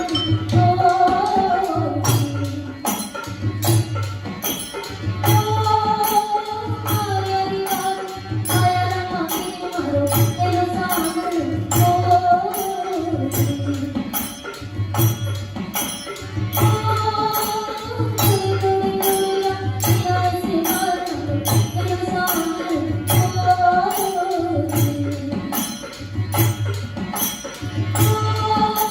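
Rajasthani folk music: a wavering sung melody over a steady low drum beat, a little over one beat a second, with jingling percussion.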